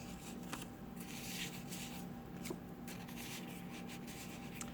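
Faint rustling and sliding of paper as a handmade junk journal's pages and paper inserts are handled, with a few soft taps.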